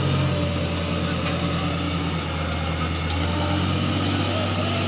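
Engine of a heavy machine running steadily with a low drone.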